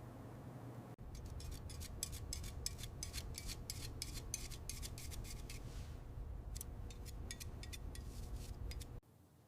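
Rapid, irregular scraping strokes on a hard surface over a low steady hum, like hand work on a part. They cut in abruptly about a second in and stop abruptly near the end.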